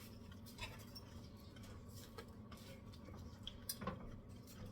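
A few faint, scattered clicks and light taps over a low steady hum, with a small cluster of clicks near the end.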